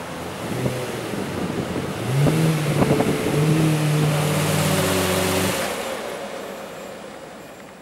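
Lamborghini Murciélago LP670-4 SV's V12 through an iPE Innotech exhaust, running low, then rising in pitch as the car moves off, with a few sharp cracks. The engine sound cuts off about two thirds of the way through, leaving a fading hiss.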